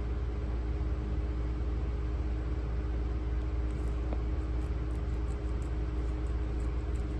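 A steady low mechanical hum with a few constant tones running under it, unchanging throughout.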